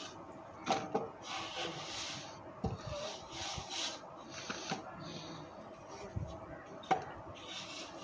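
A straightedge dragged across fresh cement-sand plaster on a wall, a rough rasping scrape in repeated strokes as it screeds off the excess mortar. A few sharp knocks in between.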